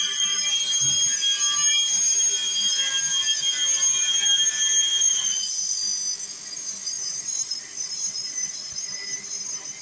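Saw-sharpening machine's grinding disc grinding the teeth of a circular panel-saw blade as the blade is fed against it by hand: a steady, high-pitched metallic ringing grind, whose pitch shifts a little past halfway.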